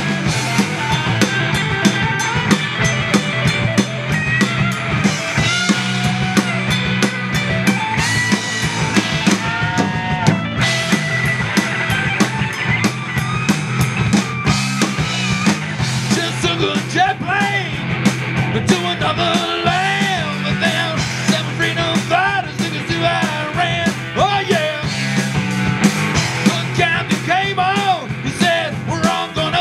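Live rock band playing an instrumental passage: two electric guitars, bass guitar and drum kit, with a steady bass line and busy drums. Over the second half a lead line bends its notes up and down in pitch.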